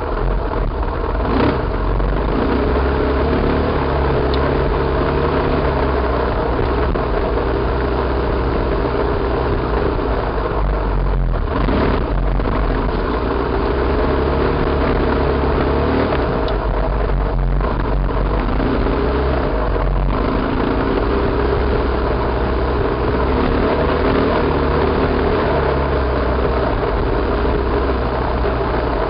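Enduro motorcycle engine heard from an on-board camera while the bike is ridden, its note rising and falling with the throttle.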